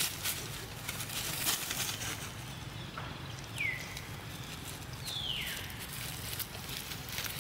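Rustling and crackling in dry leaf litter as macaques forage. Two short, high calls that fall in pitch come about three and a half and five seconds in.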